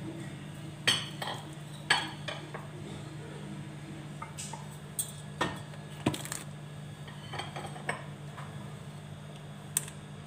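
Glass bowl clinking and tapping against an aluminium pressure cooker as powdered spices are shaken out of it into the pot: about ten scattered light knocks over a steady low hum.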